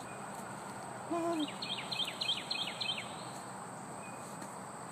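Woodland birds calling: a brief low hoot about a second in, then a songbird's quick run of about six falling chirps, over a steady high insect hiss.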